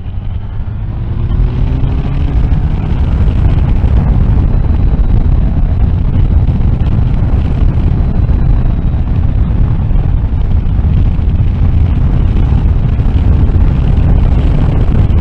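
Triumph Tiger Sport 1050's three-cylinder engine pulling under acceleration, its note rising over the first couple of seconds, then buried under loud, steady wind roar on the microphone at road speed.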